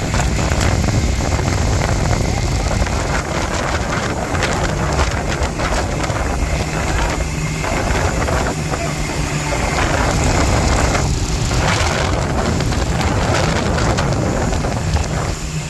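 A fishing boat's engine running steadily, mixed with strong wind rumbling on the microphone and the rush of rough sea against the hull.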